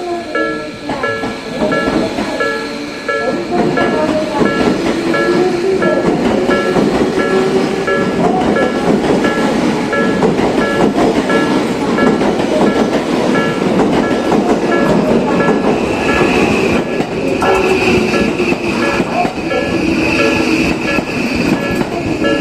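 Japanese level-crossing warning bell ringing over and over in a quick two-tone pattern while an electric commuter train runs past through the crossing, its wheels clattering on the rails, with a motor whine gliding up and down.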